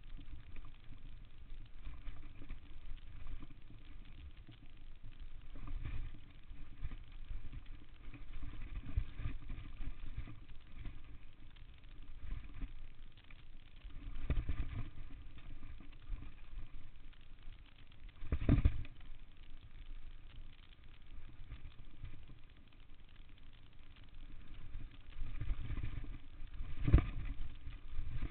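Downhill mountain bike rolling fast over a dry dirt trail, heard from a chest-mounted camera: a steady low rumble of tyres and wind with the bike rattling, broken by sharp knocks over bumps, the loudest about two-thirds of the way through and another near the end.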